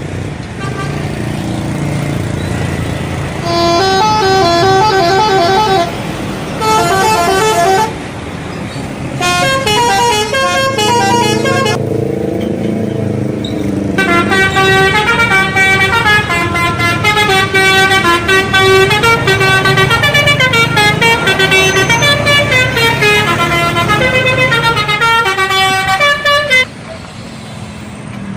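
Bus telolet horn, a set of air-horn trumpets sounded in sequence to play quick melodic runs of notes. There are short bursts in the first half, then a long continuous tune that cuts off suddenly near the end, with the low rumble of the bus engine underneath.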